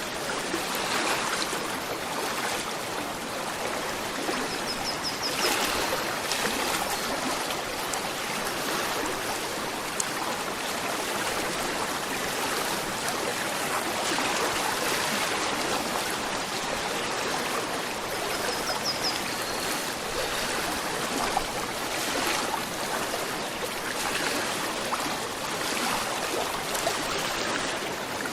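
Gentle river flowing: a steady rushing and trickling of running water.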